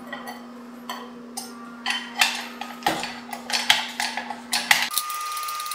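Hand-pumped jack on a car rotisserie being worked to lift it: a series of sharp metallic clicks and knocks, about two a second and unevenly spaced, over a steady low hum that stops near the end.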